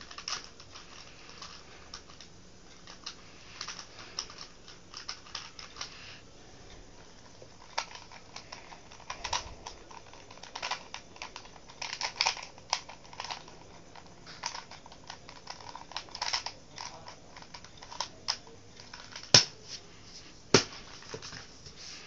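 Rubik's Cube being turned by hand: uneven runs of quick plastic clicking and clacking as the layers rotate, with two sharper, louder clacks a little before the end.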